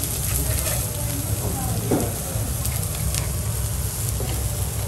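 Diced vegetables sizzling steadily on a hot teppanyaki steel griddle, over a steady low hum.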